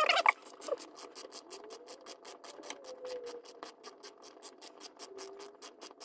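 A ratchet wrench clicking in a fast, even run, several clicks a second, as a loosened bolt is spun out, after a short louder noise at the start.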